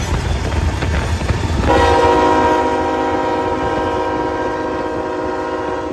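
Locomotive multi-chime air horn sounding one long, steady blast, starting about a second and a half in, over a low rumble.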